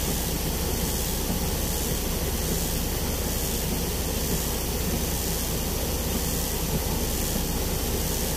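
Truck engine idling steadily, heard from inside the cab, with an even hiss over it.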